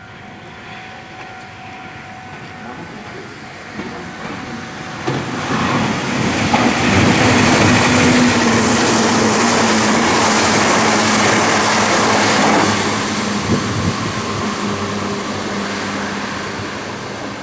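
Meitetsu 1030/1230 series Panorama Super electric train running past along the platform. The rumble of its wheels on the rails builds over the first few seconds, stays loud with a steady low hum through the middle, and fades toward the end.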